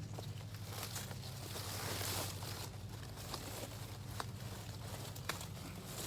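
Foliage rustling as plants are cleared out by hand, with a few separate sharp clicks or snips, over a steady low hum.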